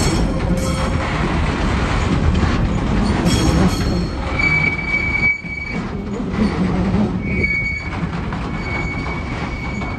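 Container flat wagons of a TasRail freight train rolling past, a steady rumble of wheels on rail. High-pitched wheel squeal comes and goes, with the strongest, most steady squeal from about four seconds in.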